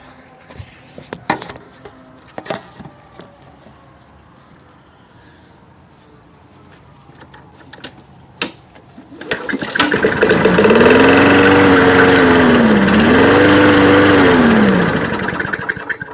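Lawn mower's small petrol engine coming up to speed about nine seconds in after a few clicks and knocks, then running unevenly, its speed rising and sagging twice before it dies away near the end. The engine runs rough.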